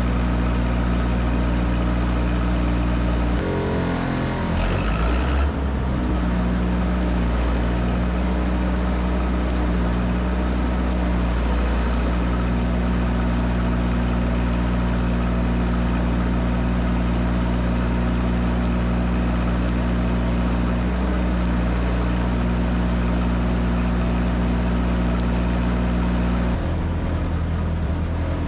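Miller Big 40 engine-driven welder's engine running steadily. It changes speed about four seconds in and changes again near the end.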